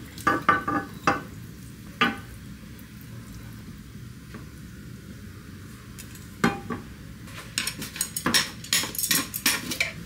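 Spatula scraping and knocking against a frying pan as stir-fried food is pushed out into glass containers. There are a few sharp knocks in the first second and one at about two seconds, then a quick run of scrapes and taps from about six and a half seconds to the end.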